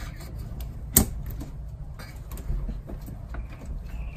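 Hand work on a van's metal seat base: one sharp click about a second in, then a few softer taps and knocks as the carpet trim and fasteners are handled.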